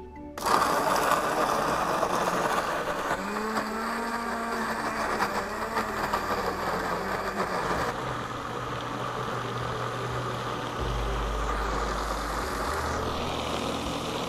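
Electric countertop blender running, grinding raw chicken with a little water into meatball paste. The motor starts suddenly about half a second in, its pitch wavers as the load shifts, and its tone changes about halfway through.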